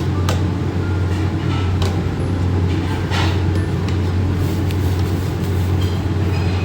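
Steady low mechanical hum, with scattered light clinks and taps of utensils.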